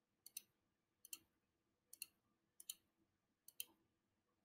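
Computer mouse button clicked five times, about once a second, each click heard as two quick ticks; faint.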